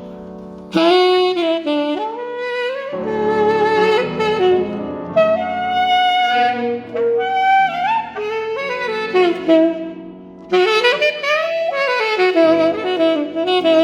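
Saxophone playing flowing melodic jazz phrases over soft sustained accompaniment, coming in under a second in and breaking briefly about ten seconds in before the next phrase.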